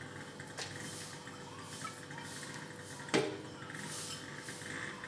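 Quiet handling sounds as green chillies and coriander are dropped into a plastic blender jar, with one sharp knock about three seconds in over a faint steady hiss.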